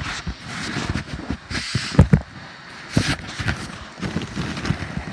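Handling noise from a phone camera being jostled in the hand: rubbing on the microphone and irregular knocks, the loudest about two seconds in.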